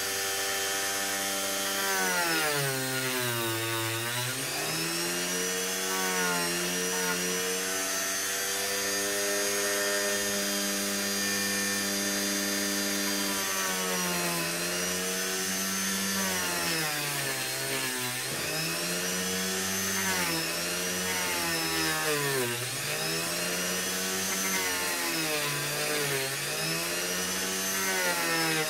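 Dremel rotary tool with a sanding drum running and sanding into EVA foam, a steady motor whine over a rough sanding hiss. The whine sags in pitch and recovers several times as the drum is pressed into the foam and eased off.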